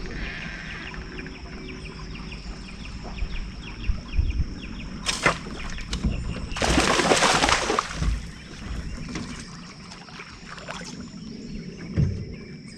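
A sharp crack about five seconds in, then about a second of loud splashing: a buffalo fish hit by a bowfishing arrow thrashing at the water's surface. Dull knocks sound a few times against the boat.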